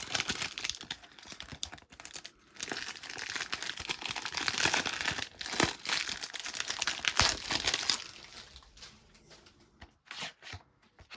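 Plastic shrink-wrap being torn and crumpled off a sealed DVD box set, a continuous crinkling that dies away about eight seconds in. A few light clicks of the packaging being handled near the end.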